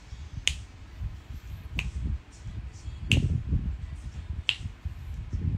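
Four sharp clicks, evenly spaced about a second and a half apart, over a low uneven rumble.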